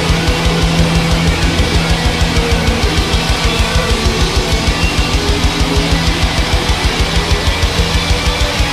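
Heavy metal music with guitar and a fast, even drum beat of about six hits a second.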